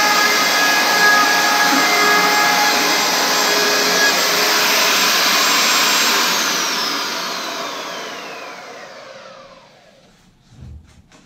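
Compact handheld router running and cutting plywood edges, then switched off about six seconds in: its high whine falls steadily in pitch as the motor spins down over about four seconds. A light thump near the end as the tool is set down.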